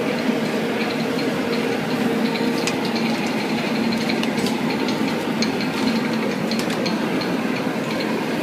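Steady hum and rushing noise from a taco stand's kitchen at work, with scattered light clicks and clinks of metal utensils.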